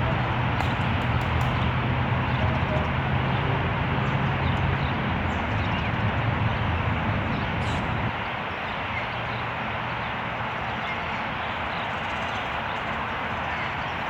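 Outdoor city ambience: a steady low hum under constant background noise, the hum dropping away about eight seconds in, with faint bird chirps scattered through.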